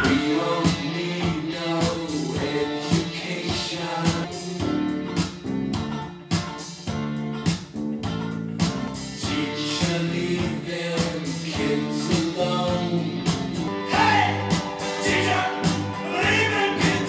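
A song with singing over guitar, played back through a pair of Martin Logan Motion series XTW5-LCR in-wall speakers with folded-motion tweeters.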